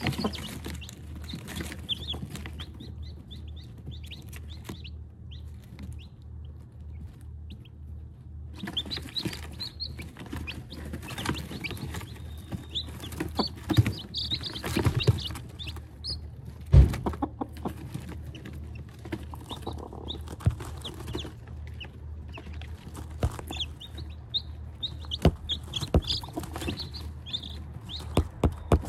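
Newly hatched chicks peeping in many short high chirps, with their mother hen clucking among them, over a steady low hum. A few sharp knocks, the loudest a little past halfway.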